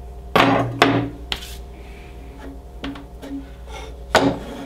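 Equipment being handled and set down on a bench: a few sharp knocks and clatters, two loud ones close together about half a second in and another near the end, over a steady low hum.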